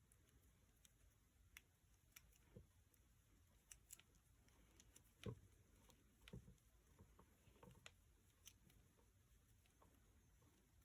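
Near silence, with faint scattered clicks and light knocks at irregular times; the strongest knock comes about halfway through.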